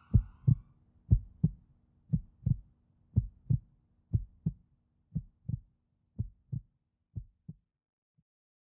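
Heartbeat sound effect: paired low thumps about once a second, growing fainter until they stop near the end, with one faint last beat after. It stands for a heart giving out after a drug overdose, as the person loses consciousness.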